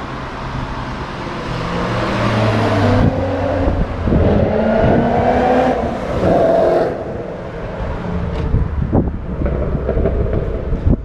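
High-performance car engine accelerating hard. Its pitch climbs between about two and seven seconds, dropping briefly at each gear change, then settles to a lower, quieter note.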